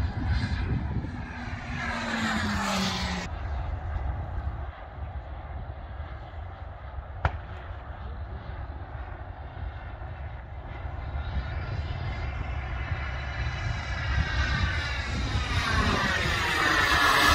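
CARF Ultra Flash Evo model jet's turbine during flypasts: one pass fading away in the first few seconds, then the jet coming back and growing loud as it passes close overhead near the end, its sound sweeping in pitch as it goes by. A single sharp click about seven seconds in.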